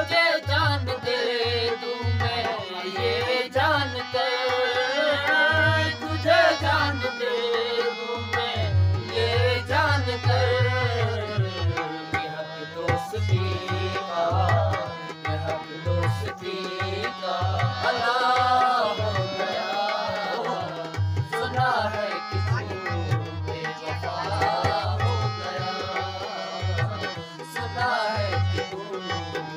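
Male vocalist singing a wavering melody to a harmonium, with a dholak drum playing a steady rhythmic beat underneath.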